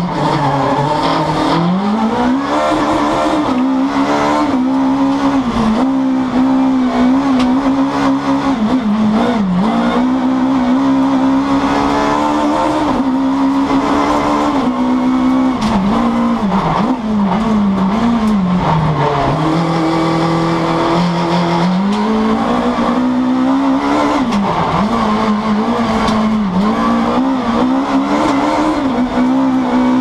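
Naturally aspirated four-cylinder Super1600 engine of an Alfa Romeo MiTo rallycross car, heard from inside the cockpit, revving hard. Its pitch climbs through each gear and drops sharply at every shift or lift, again and again through the lap.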